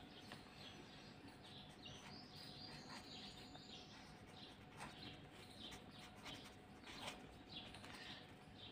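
Faint scratching of a ballpoint pen writing on paper, in many short strokes, over a faint steady hum.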